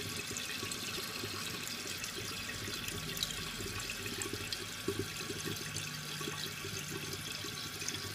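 Korky toilet fill valve refilling the tank: a steady hiss of water running into the cistern.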